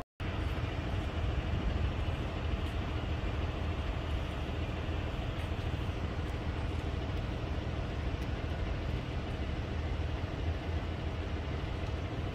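Steady road and engine noise of a moving vehicle, with a constant low rumble.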